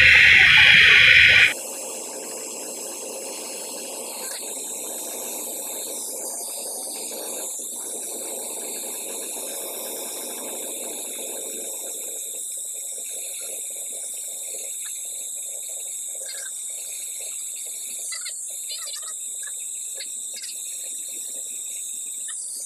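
Brazing torch flame hissing while a copper joint on a refrigeration line is brazed. A louder rush for about the first second and a half, then a steady, quieter hiss.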